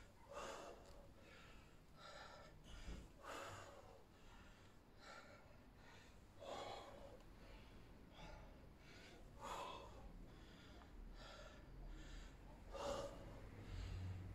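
A man breathing hard from exertion, faint, with a short puff of breath about every second and a half.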